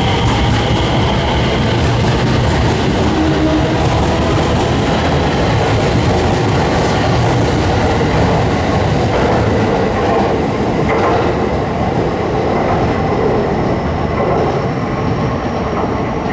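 JR 227 series electric multiple unit, two coupled sets, pulling away and running past at close range. A motor whine rises in pitch in the first couple of seconds, and the wheels click over rail joints as the cars go by. The sound eases off slightly near the end as the last car leaves.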